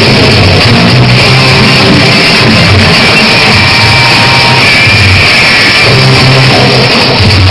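Loud rock backing music with guitar, dense and unbroken, with a steady bass line.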